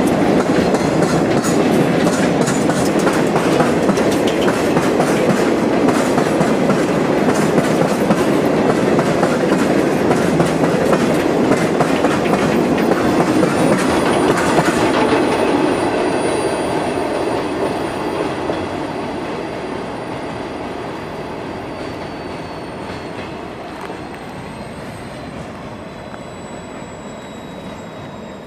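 Loaded ore hopper cars of a freight train rolling past, with steady wheel rumble and rapid clicking over rail joints. About halfway through the sound fades steadily as the train moves away. A thin high wheel squeal from the curve drifts slowly down in pitch.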